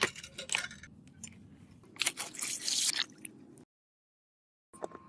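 Hand tools scraping and crunching against a vintage revolver's metal during restoration: a few short strokes, then a louder stretch of scraping about two seconds in that cuts off suddenly.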